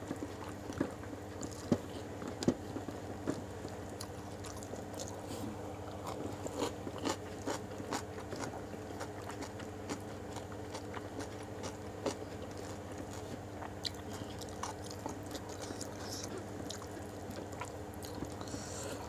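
A person chewing rice and jengkol, with many short, scattered wet clicks and smacks of the mouth, over a steady low hum.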